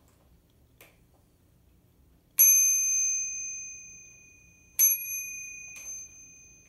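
Handlebar bell on a child's three-wheel kick scooter, rung twice about two and a half seconds apart; each ring is a single ding that rings on and fades slowly.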